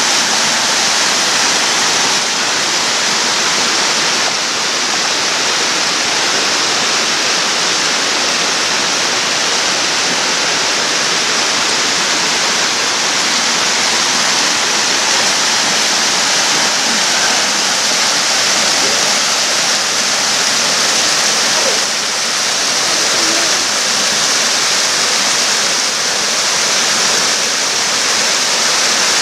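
Crabtree Falls' cascades: loud, steady rushing of falling water that does not let up.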